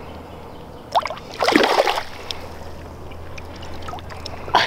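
Shallow river water sloshing steadily around a wading angler, then a loud splash about a second and a half in as a released smallmouth bass kicks out of his hands and swims off.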